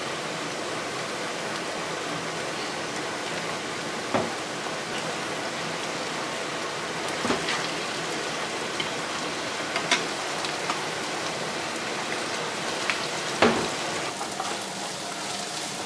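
Minced meat with onion and garlic sizzling steadily in a frying pan over a gas flame, with four short sharp clicks spread through.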